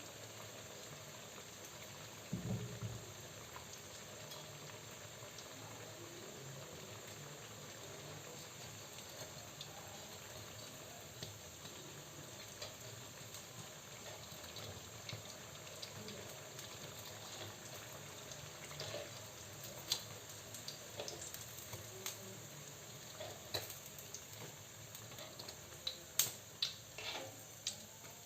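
Flour-battered tempeh frying in hot oil: a faint, steady sizzle. There is a dull knock a couple of seconds in, and sharp clicks come more often near the end.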